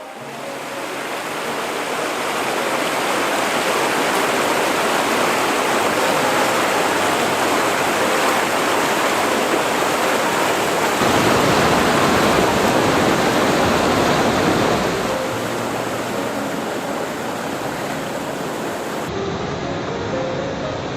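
A waterfall rushing: a steady roar of falling water that builds over the first few seconds, is loudest a little past the middle, then settles slightly quieter.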